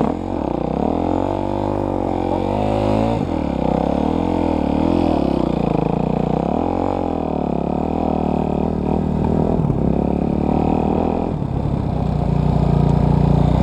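Dirt bike engine running under load while ridden, its revs rising and falling repeatedly with the throttle.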